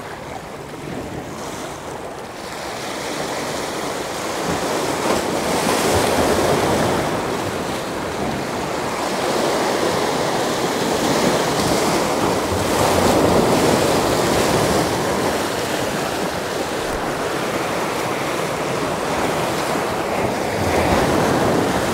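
Small waves washing in at the water's edge, a steady wash of surf that swells and eases a few times, with wind buffeting the microphone.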